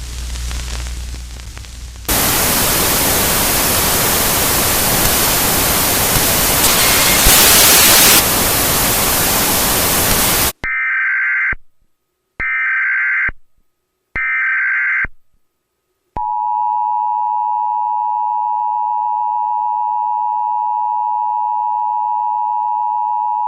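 Mock Emergency Alert System test: loud static hiss for about eight seconds, then three short bursts of screeching EAS header data tones, then the steady two-tone EAS attention signal, which begins about two-thirds of the way through.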